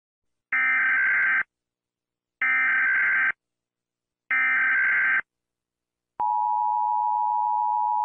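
Emergency Alert System broadcast signal: three one-second bursts of SAME header data, about a second apart. About six seconds in, the steady two-tone EAS attention signal starts.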